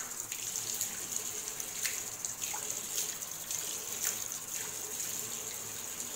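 Tap running steadily into a washbasin while water is cupped in the hands and splashed onto the face, several short splashes over the flow.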